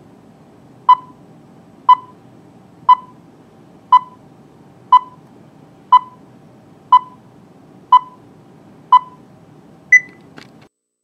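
Video countdown beeps: a short beep once a second, nine times, then a final higher-pitched beep near the end. Faint steady hiss underneath.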